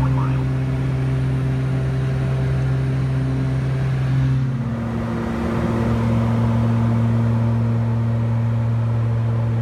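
Cockpit drone of a Beechcraft King Air 200's twin Pratt & Whitney PT6A turboprops in cruise: a steady hum of engine and propeller with a strong low tone. About five seconds in, the tone steps slightly lower.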